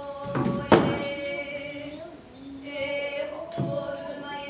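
A Hawaiian oli chanted in long, held tones, in two phrases with a short break about two seconds in. A single sharp knock about a second in is the loudest sound.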